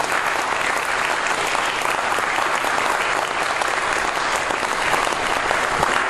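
Church congregation applauding steadily.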